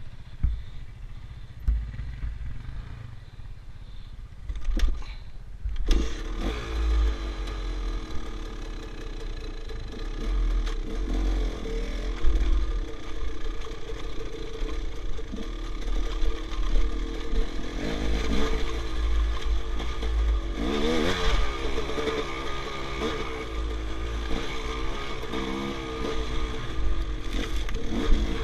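Enduro motorcycle engine recorded on board, revving up and down repeatedly as the bike picks its way over rocks. It starts with a low rumble and a couple of sharp knocks, and from about six seconds in the engine gets louder and is blipped again and again.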